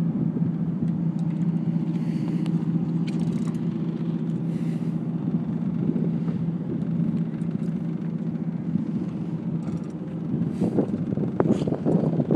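Boat engine idling with a steady low hum, plus a few knocks and handling noises near the end.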